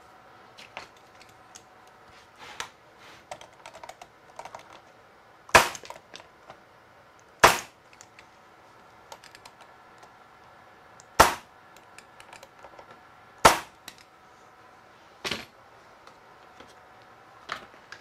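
Pneumatic stapler firing five sharp shots a couple of seconds apart, driving staples into a mitred wooden joint. Light clicks of the work and clamp being handled come between the shots.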